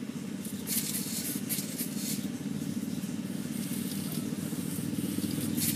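Homemade robot dog's motor and gear mechanism running with a steady drone, with a few short hissing scrapes over it.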